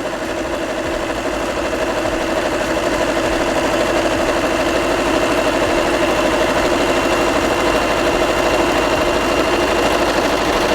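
Brother LX3014 electric sewing machine running steadily at speed, sewing a zigzag stitch with a fast, even needle rhythm. It stops suddenly at the end.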